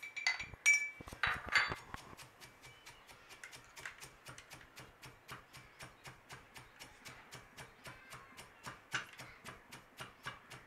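Steel pestle pounding roasted whole coriander seeds and cumin in a steel mortar: an even run of quick, light strikes, several a second. A few louder ringing metal clinks come in the first two seconds.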